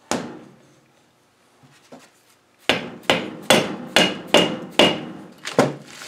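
Hammer blows on a steel part in a steering box: one blow, then after a pause a run of about eight quick blows, some with a metallic ring, tapping a part through the housing.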